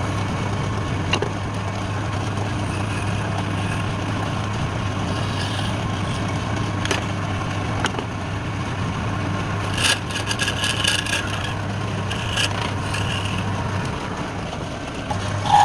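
Wood lathe running steadily with an even motor hum, with a few sharp clicks and a brief rattling run of clicks about ten seconds in.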